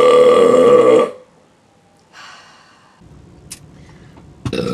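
A woman's long, loud burp, steady in pitch, that ends about a second in. Then comes a short breath and a small click, and near the end another long, loud burp begins.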